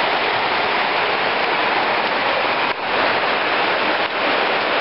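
Rain falling steadily, a loud even hiss with no pauses.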